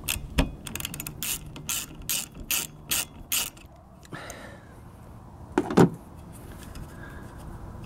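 Ratchet wrench with a 10 mm socket clicking as the nut on the rear wiper arm's pivot is undone: a run of sharp clicks, about two or three a second, for the first three seconds or so. A louder double knock follows near six seconds.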